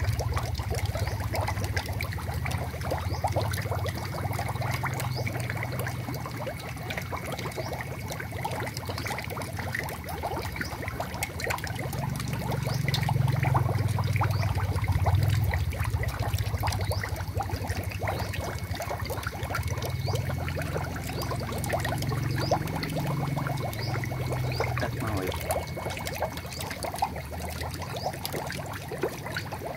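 Water trickling and splashing in an eel-rearing tank, a dense crackle of fine drips and splashes over a steady low rumble.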